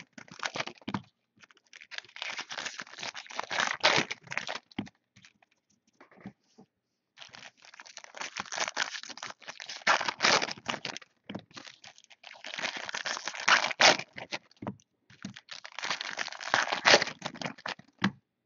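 Foil trading-card pack wrappers being torn open and crinkled by hand, with the rustle and clicking of cards being handled, in irregular bursts with a brief near-quiet pause about five seconds in.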